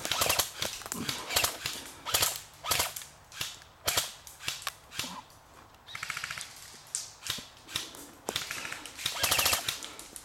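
Airsoft guns firing: scattered single shots, with rapid full-auto bursts about six seconds in and again about nine seconds in.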